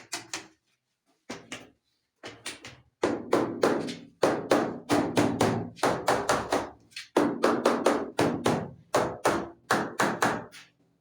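Rapid tapping knocks in several runs, a few strikes a second with short pauses between runs, each knock ringing briefly: a wall tile being tapped down into its cement adhesive bed.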